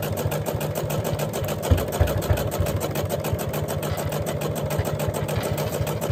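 Domestic electric sewing machine running steadily, sewing a zigzag stitch through layered cotton and batting, its needle going in a fast, even rhythm. A brief low thud comes about two seconds in.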